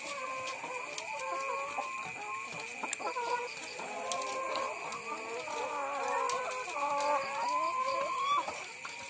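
Caged laying hens clucking, many short calls overlapping, growing busier toward the end and closing on one longer drawn-out call. A steady high-pitched tone runs underneath.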